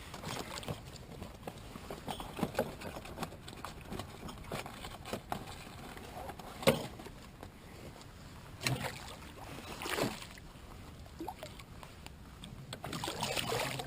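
Scattered knocks, taps and rustles in a canoe, with one sharp knock a little over halfway through and a couple of duller thuds after it.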